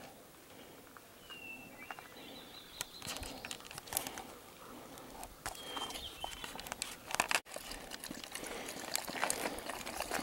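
Footsteps crunching and scraping on a rocky, gravelly mountain trail, with a bird giving two short high chirps. Towards the end, a dog laps water from a small pool between rocks.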